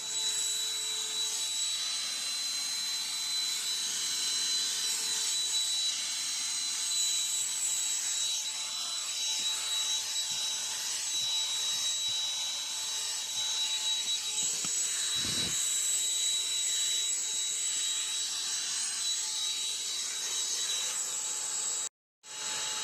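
Black & Decker CHV1410L 16-volt lithium handheld vacuum running steadily, a rushing airflow sound with a high-pitched motor whine. It cuts out briefly near the end.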